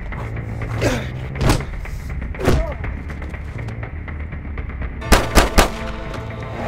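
Film fight sound effects over a music score: a few punch impacts in the first seconds, then three gunshots in quick succession about five seconds in.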